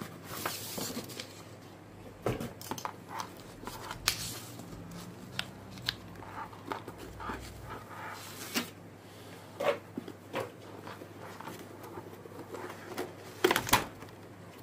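Packaging being handled: a cardboard box opened and a rolled cloth mousepad slid out of its clear plastic tube, with scattered rustles, scrapes and light taps. A couple of louder knocks come near the end.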